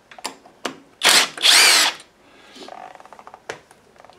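Hercules cordless drill-driver backing out valve cover bolts: two short blips, then two brief runs of the motor, its pitch rising and falling, about a second in. Light metallic clicking and rattling follow.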